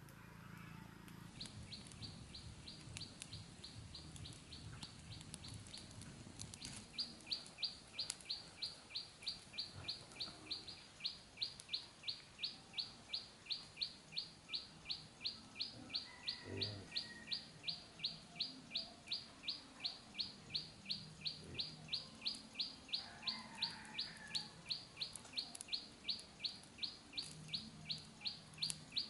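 A bird repeating one short, high chirp about three times a second, steadily and without a break, growing louder after the first few seconds. Occasional faint clicks, as from a small wood fire crackling, lie beneath it.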